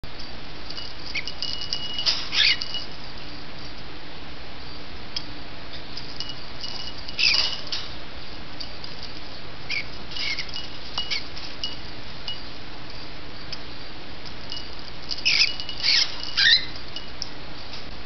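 A small metal bell on a cockatiel's sunflower toy jingling in short bursts as the bird plays with it, four bouts in all, the last cluster near the end the loudest, with a thin ringing note lingering after some of them.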